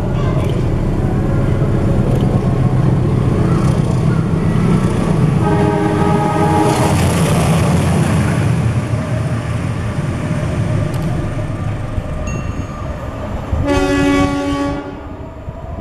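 Diesel-hauled freight train running by with a steady low rumble. Its locomotive horn sounds twice: a blast about five and a half seconds in lasting over a second, and a second, stronger chord-like blast near the end.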